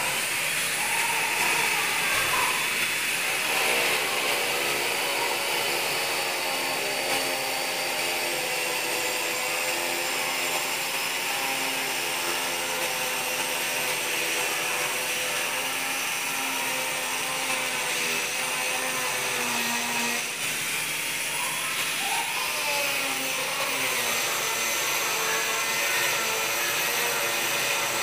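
A handheld power tool running continuously, its motor hum wavering slightly in pitch.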